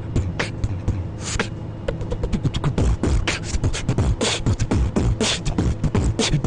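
Human beatboxing: drum-like kicks, snares and hi-hat clicks made with the mouth into cupped hands, sparse at first, then a fast, dense rhythm from about two seconds in.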